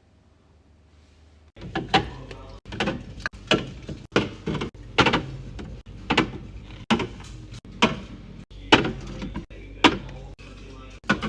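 Fridge-restocking handling sounds: containers and packages knocked and set down on shelves. Sharp knocks come about once or twice a second after a quiet first second and a half, in short clips broken by abrupt cuts.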